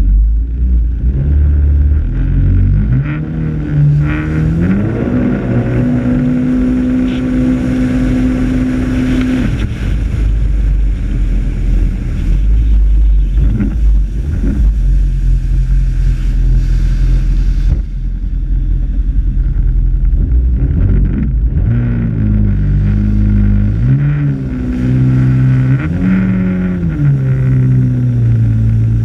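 Jet ski engine accelerating at full throttle: its pitch climbs about three to six seconds in, holds high for a few seconds, then drops. It later rises and falls several times more, over steady rushing noise.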